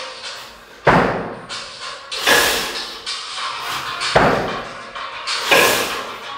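Two 24 kg kettlebells being jerked overhead and dropped back to the chest rack in a steady rhythm: four sharp, heavy hits, each fading over about half a second, roughly one every one and a half seconds.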